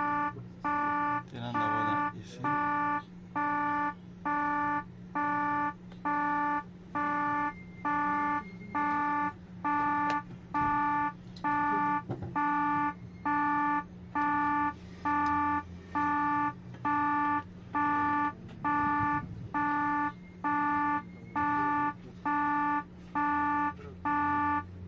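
Electronic warning buzzer beeping in an even, unbroken pattern, about one beep a second, each beep a steady tone, over a low steady hum.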